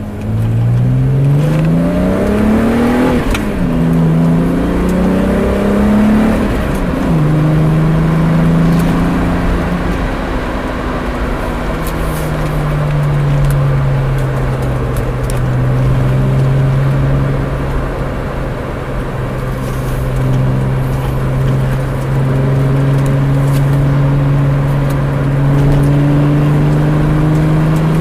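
VW Mk3 GTI VR6 engine through a Jetex aftermarket exhaust, heard from inside the cabin while driving. The engine note climbs under acceleration over the first few seconds and falls sharply about three seconds in. After a few more rises and drops it settles into a steady low drone at cruise for the second half.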